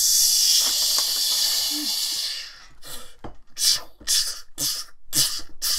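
A man's mouth-made quickening sound effect imitating an electrical energy surge. A loud, steady high hiss lasts about two and a half seconds, then breaks into short, sharp hissing crackles about two a second.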